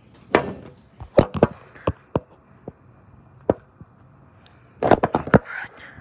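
Sharp knocks and taps close to the microphone as a phone camera is handled and propped up on a tabletop. There are several scattered knocks in the first half, then a quick cluster of them about five seconds in.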